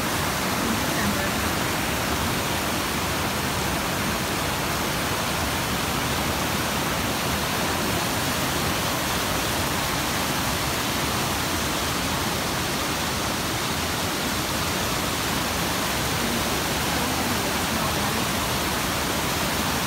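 Whitewater rapids and a low waterfall rushing over rock ledges: a steady, even rush of water with no change in level.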